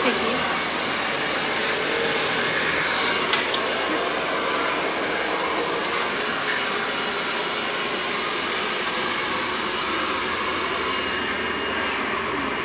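Hand-held hair dryer blowing steadily as long hair is blow-dried over a round brush.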